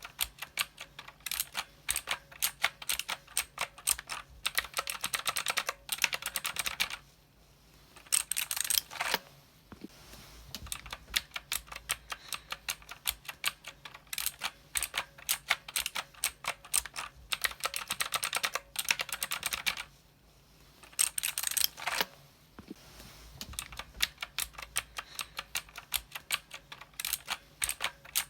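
Typing on a mechanical keyboard: rapid key clicks in runs, with short pauses about seven and twenty seconds in.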